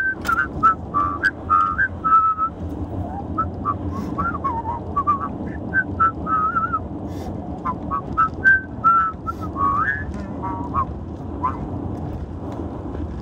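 A man whistling a tune in short, gliding notes, over the steady rumble of a car cabin on the road. The whistling stops about ten seconds in, leaving only the road noise.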